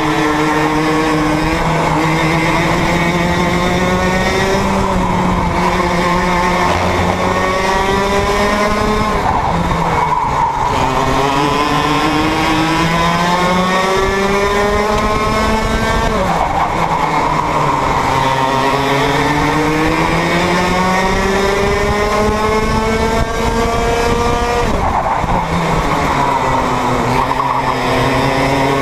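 Onboard sound of a KA3 junior kart's two-stroke engine racing, its pitch climbing steadily for several seconds as it accelerates, then falling back sharply as it slows for a corner, three times over.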